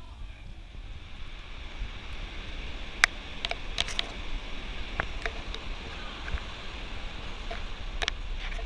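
Steady low rumble and hiss of background noise with scattered sharp clicks and knocks, the loudest about three seconds in.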